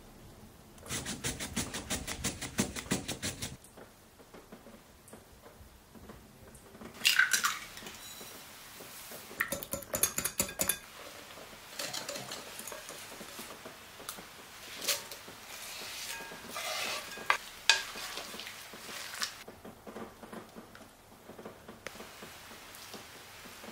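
Kitchen utensils clinking and scraping against a glass mixing bowl and dishes. A run of rapid, even strokes comes near the start, sharp clinks come about seven and ten seconds in, and softer stirring and scraping follows as a whisk works through batter in the bowl.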